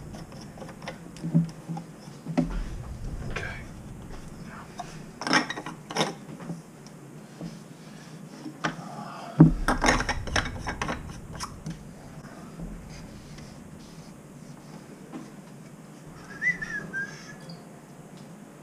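Clicks and knocks of metal and plastic parts of a Moen single-handle kitchen faucet being handled and fitted back together, loudest around the middle. A brief high chirping tone comes near the end.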